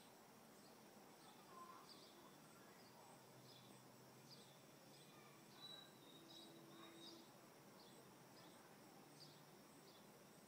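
Near silence: quiet outdoor background with a faint short high chirp repeating a little more than once a second.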